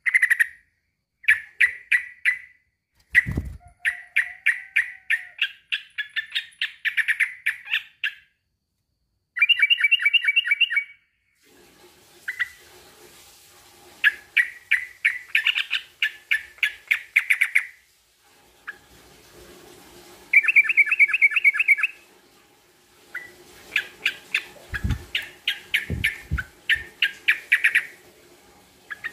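Male yellow-vented bulbul (trucukan) calling to a rival in repeated phrases of rapid, sharp chattering notes, each phrase lasting a second or a few, with short pauses between. A few low thumps come in about three seconds in and again near the end.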